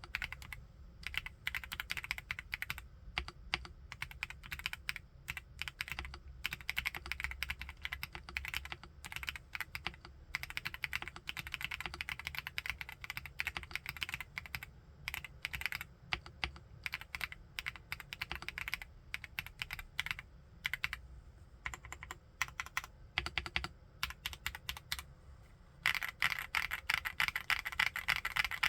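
Typing on a WEIKAV RO75 full-aluminium 75% mechanical keyboard: a steady run of keystrokes, turning into a faster, denser flurry of keys near the end.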